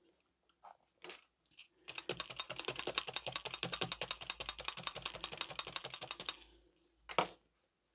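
Felting needle tool stabbing rapidly into wool over a foam pad, an even run of sharp clicks at about ten a second for roughly four seconds before stopping. A single knock follows near the end.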